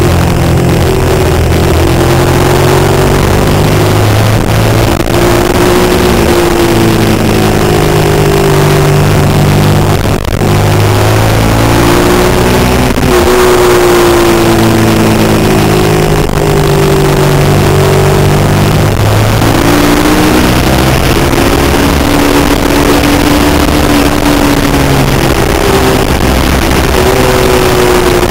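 Suzuki SV650's 90-degree V-twin engine at racing speed, its revs climbing and dropping again and again through gear changes and corners, over heavy wind rush on the microphone.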